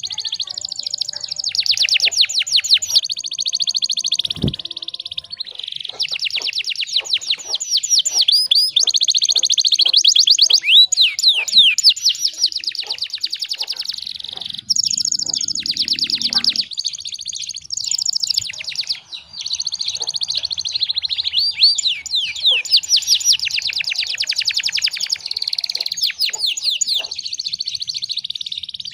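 Domestic canary singing a long, almost unbroken song of rapid trills and rolls. A brief low thump sounds about four seconds in.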